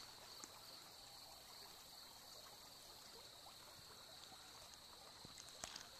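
Faint, steady rush of the Buffalo River flowing past.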